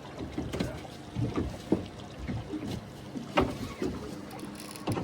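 Water slapping against the hull of a small fishing boat, with irregular knocks and creaks from the boat.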